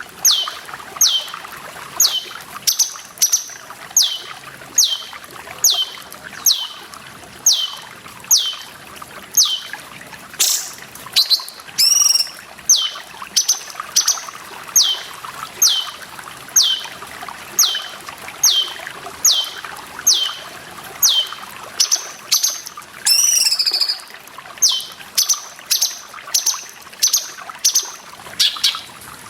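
Cucak cungkok (blue-winged leafbird) calling a long run of short whistled notes, each falling sharply in pitch, about three every two seconds, with a longer warbled call about twelve seconds in and again near twenty-three seconds. Trickling water runs steadily underneath.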